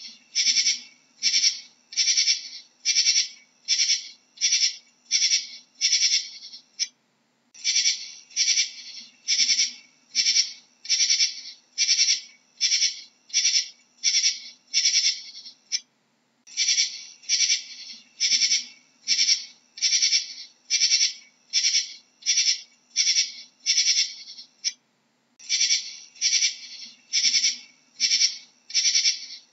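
Katydid stridulating: short, high-pitched chirps repeated evenly about two a second, in runs of roughly nine seconds with brief pauses between runs.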